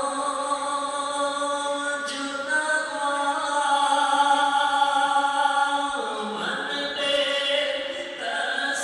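A man's voice chanting a slow, melodic Islamic recitation, holding long notes for several seconds. The pitch shifts about six seconds in and again near the end.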